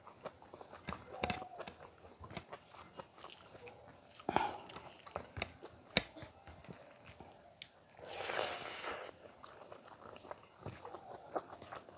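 Close-miked eating by hand: mouth smacks, chewing and crunching, with sticky squelches of fingers working rice and curry on a plate. There are many short clicks and one longer noisy stretch about eight seconds in.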